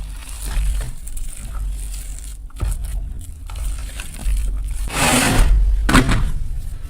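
Gym chalk and dried flower petals being crushed: a run of fine crinkly crackling and crunching, with two louder, denser crushes about five and six seconds in.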